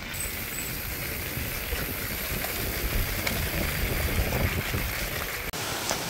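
Mountain bike rolling down a rough dirt trail: steady tyre rumble with scattered rattles and knocks from the bike, growing a little louder as it goes.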